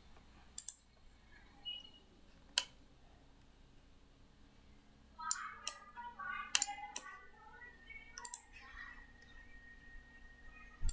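Computer mouse clicks: a few single sharp clicks spaced apart, then a quicker run of clicks between about five and eight and a half seconds in.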